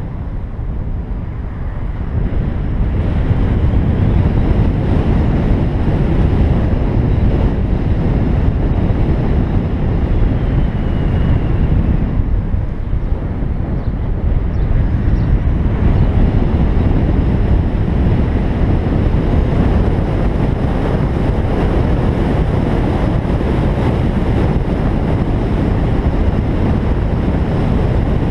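Loud, steady wind rumble on the microphone mixed with road noise from a BMW i3s driving along a road, easing briefly about halfway through.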